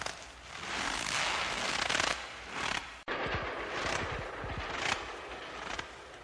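Footsteps crunching through snow, one crackling step after another, with a sudden brief cut in the sound about three seconds in.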